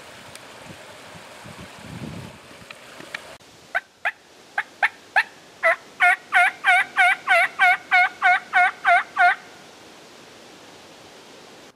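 Running water of a small creek for the first three seconds, then a run of about eighteen hen turkey yelps blown on a mouth call, starting softly and spaced out and building to about three loud yelps a second before stopping abruptly.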